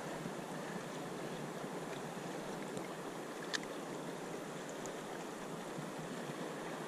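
Steady rush of the Snake River's flowing water, with one faint click about three and a half seconds in.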